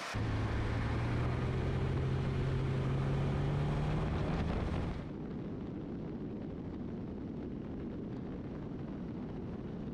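Kitfox III light aircraft's engine and propeller running steadily in flight, its pitch edging up slightly over the first four seconds. About five seconds in, the sound drops in level and turns duller, losing its high hiss.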